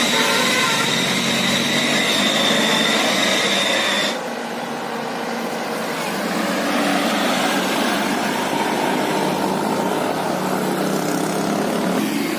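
Tour buses running in traffic, a steady engine and road noise. For about the first four seconds a steady high-pitched tone sits over it and then cuts off abruptly.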